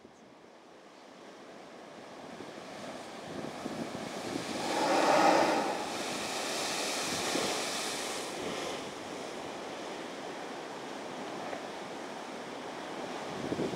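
Spouting Horn blowhole: a sea surge forced up through a lava tube erupts in a loud rush of spray that peaks about five seconds in, then hisses away into steady surf washing over the lava rocks. The sound fades in from faint over the first few seconds.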